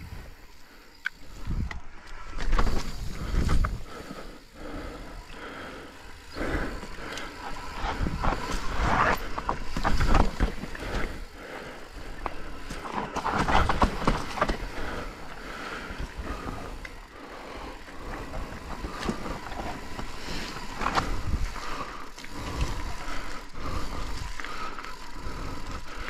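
Mountain bike riding down a rough, rocky technical trail: tyres rolling and skidding over rock and dirt, with irregular knocks and rattles from the bike as it hits bumps and drops.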